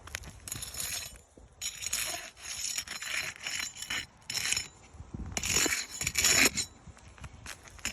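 Scraping and clinking of hand work on a roof shingle, in about five separate bursts with short pauses between them.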